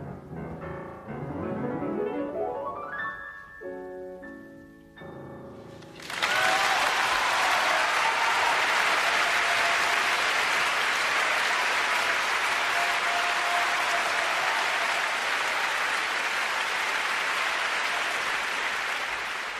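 Grand piano ending a piece with a fast rising run and a few final chords, then audience applause breaking out about six seconds in and continuing steadily.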